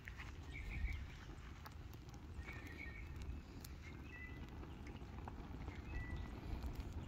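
Open fire burning a welcome mat on top of a charred tree stump, with scattered crackles and pops over a steady low rumble. A bird chirps briefly four times.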